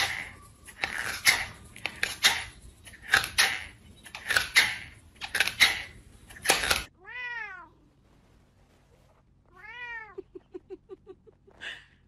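A run of loud, hissy bursts about once a second that cuts off abruptly. Then a cat meows twice, each call rising and falling, followed by a quick string of short chirps.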